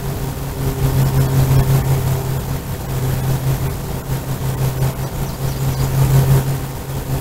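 A steady low mechanical hum, like a running engine, holding one even pitch throughout.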